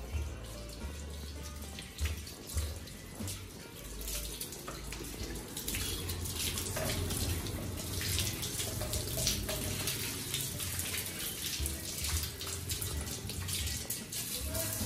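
Water from a hose running and splashing over a brass hookah as it is rinsed clean, getting louder and more spattery about five or six seconds in.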